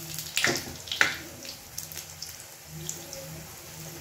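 Puris of potato dough frying in hot oil in a small pan: a steady sizzle with sharp crackling pops, the loudest about half a second and a second in, as a fresh round of raw dough goes into the oil.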